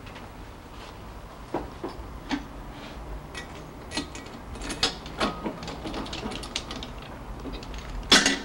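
Metal tools and parts clinking and knocking on a steel workbench as a cylinder head and gas torch are handled, in irregular scattered clicks that get busier about halfway through, with a louder clatter near the end.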